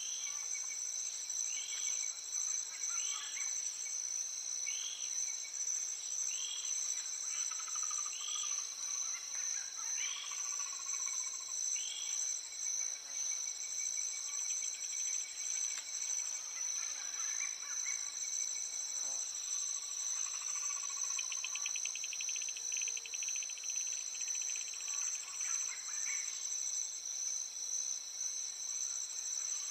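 Recorded nature soundscape: a steady, high-pitched chorus of insects with a bird calling over it. The bird gives a short arched note about once a second through the first half, then a brief buzzy trill about two-thirds of the way in.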